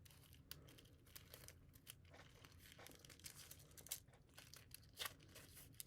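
Faint crinkling and tearing of adhesive tape being pulled off and pressed around a coil of 3D printer filament, with scattered soft ticks, the sharpest about four and five seconds in.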